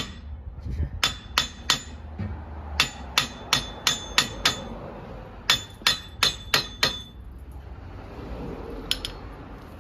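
Hammer striking metal in quick runs of blows, about three a second, each with a short metallic ring, and one last strike near the end. Parts are being tapped into place while a motor tricycle's rear axle and brake assembly is put back together.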